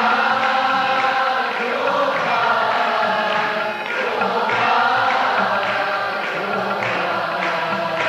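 Devotional chanting with music: a sung melody in long, held notes that glide slowly up and down.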